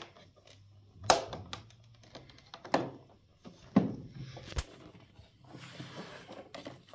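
Plastic parts of a Kiwi KCC-4320 carpet and upholstery washer being handled: four sharp knocks and clicks about a second apart, the last a dull low thump, then faint rustling.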